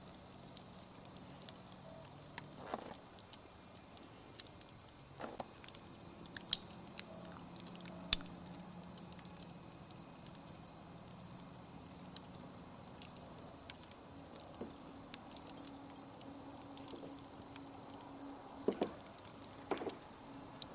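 Wood campfire crackling, with sharp pops scattered through it; the loudest come about six and eight seconds in and a few more just before the end. A steady high chirring of insects runs underneath.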